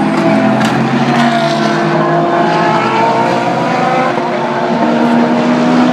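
Several GT3 race car engines running hard together, their pitches gliding up and down as the cars accelerate and shift through the gears.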